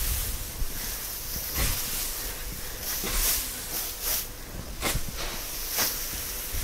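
Dry straw rustling and swishing as pitchforks lift and toss it to spread fresh bedding, a series of short swishes about one a second over a steady hiss.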